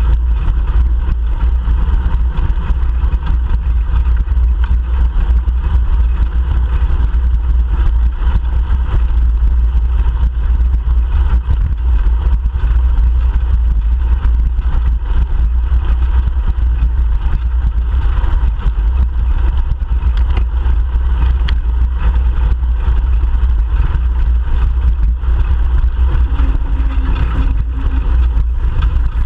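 Steady low rumble of wind and road noise on a bicycle-mounted GoPro Hero 3 Black camera while riding, with car traffic going by.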